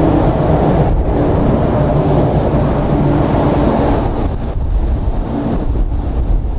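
Strong wind buffeting the microphone in heavy low rumbling gusts, with a steady low drone underneath for the first four seconds.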